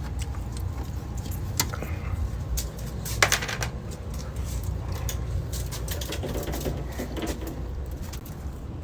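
Scattered sharp clicks and light knocks of hand work on tools and parts, over a steady low hum. The loudest click comes about three seconds in.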